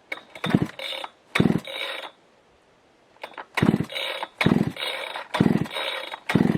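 Big two-stroke Husqvarna chainsaw being pull-started: six hard yanks on the recoil cord in pairs about a second apart, each a brief burst of cranking that does not catch and run.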